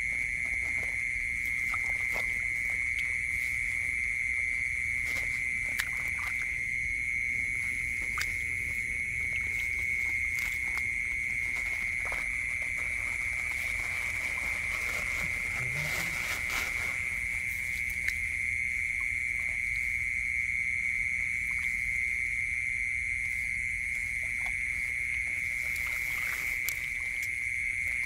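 Steady, high-pitched chorus of night-calling animals running on without a break, over small splashes and clicks of hands working in shallow muddy water; a plastic bag rustles about halfway through.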